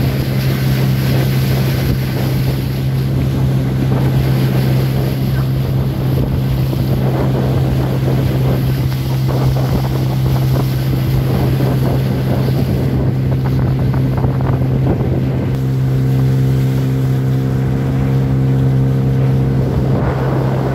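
Motorboat engine running steadily under way, with a constant low hum and wind rushing over the microphone; the engine note shifts slightly about fifteen seconds in.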